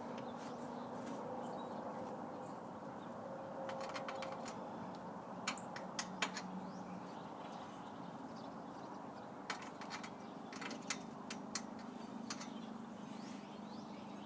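Steady background hum with scattered sharp clicks and knocks: a couple about four seconds in, three around five and a half to six seconds, and a cluster from about nine and a half to twelve seconds.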